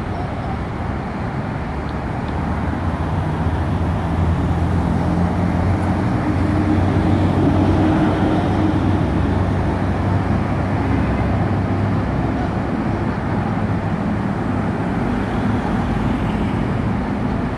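Road traffic: a steady rumble of passing vehicles, with one engine's low drone building about two seconds in, strongest midway, then easing off.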